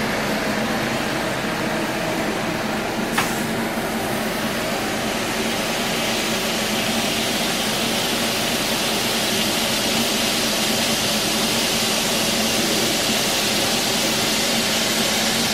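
Burger patties sizzling steadily on a hot flat-top griddle as they are pressed flat with a burger press, a continuous hissing sizzle over a faint low hum. A single sharp click about three seconds in.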